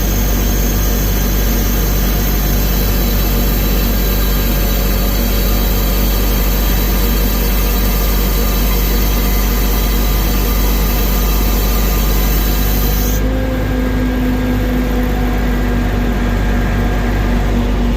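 Truck diesel engine running steadily, driving the hydraulics of a truck-mounted Serco log loader as it is worked. About thirteen seconds in, the high hiss drops away and a low hum comes up stronger.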